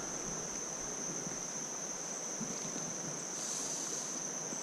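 Insects trilling steadily at one high pitch over the even hiss of creek water running.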